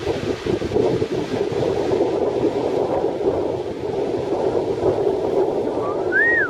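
Strong wind buffeting the camera microphone, a steady rough rumble, over waves breaking on the shore. Near the end a brief whistle-like tone rises and falls once.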